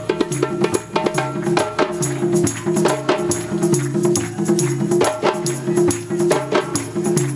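Drum circle playing a fast, dense percussion rhythm: many hand-drum strokes over a repeating low drum pattern, with no singing.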